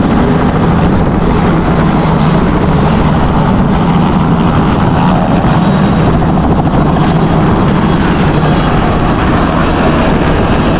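Helicopter running: a loud, steady rotor and engine noise with no let-up.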